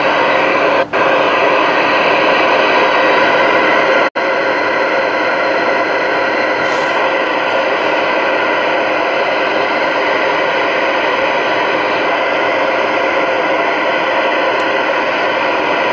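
Stryker SR-955HPC 10-meter radio receiving on channel 19 with the squelch open: loud, steady static hiss from its speaker, with faint steady tones in it. It cuts out briefly twice in the first few seconds.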